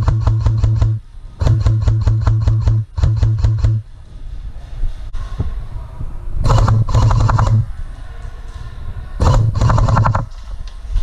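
Airsoft guns firing rapid full-auto bursts: three bursts in the first four seconds, then two more later, with quieter stretches between.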